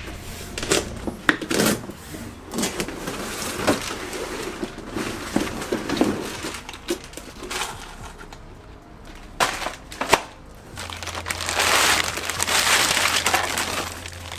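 Unboxing a front spoiler lip: cardboard flaps and packing rustling and scraping, with scattered knocks as the long lip is lifted out of its box. Toward the end, a longer run of loud crinkling as the clear plastic wrap is pulled off the lip.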